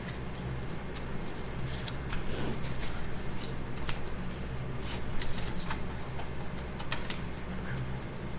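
Paper booklet rustling and light clicks from handling a CD booklet and its case, with scattered sharp ticks over a steady low hum.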